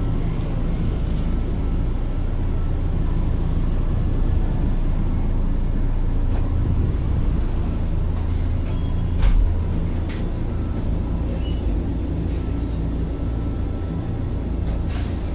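Train running: a steady low rumble, with a few faint clicks and a heavier thump about nine seconds in.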